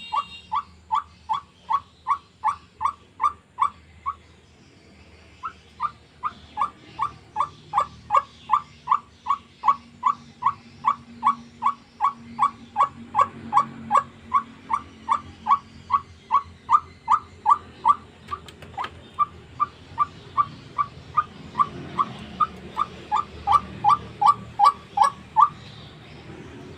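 White-breasted waterhen (ruak-ruak) calling: a monotonous string of single harsh notes, about three a second, with a short break about four seconds in and stopping near the end.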